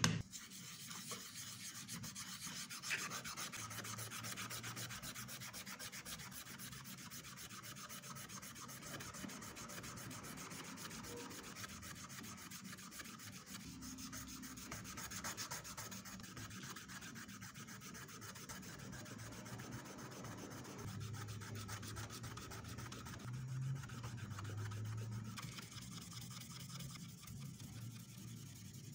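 A thin metal sheet being rubbed by hand with an abrasive, a steady rubbing scour that leaves a brushed finish on the metal as it is prepared for engraving.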